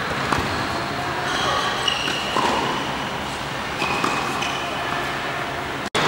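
Tennis balls bouncing and being hit on an indoor hard court: a few sharp knocks over the steady din of a large hall with distant voices, and short high squeaks of shoes on the court. The sound cuts out for an instant near the end.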